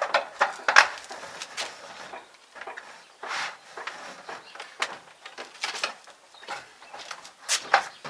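Scattered knocks and clicks from a metal door casing strip and its spacers being handled and pressed into place against a door frame, with a short scrape about three seconds in; the sharpest knocks come about a second in and near the end.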